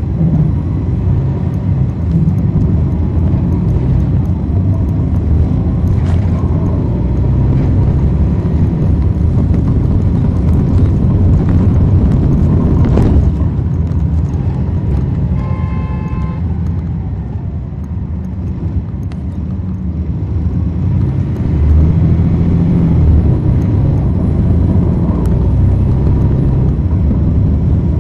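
Cummins ISL9 diesel engine of a 2010 NABI 40-SFW transit bus running as the bus drives, heard from the back of the cabin with heavy low rumble and road noise. About two-thirds through, the engine eases off for a few seconds, then pulls again. A short electronic tone sounds for about a second just past the middle.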